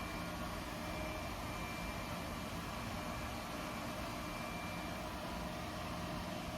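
Lefant LS1 robot vacuum running steadily: an even suction-fan whoosh with a faint steady whine over it.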